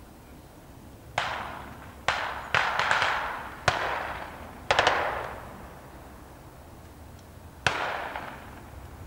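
Gunshots from small arms in an irregular string: single shots and quick pairs and triples, about ten in all, each trailing off in a long echo.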